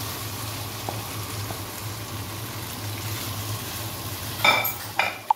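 Carrot sticks and cauliflower florets sizzling as they stir-fry in butter in a hot wok, over a steady low hum. Near the end, two or three sharp clatters as the spatula strikes the wok.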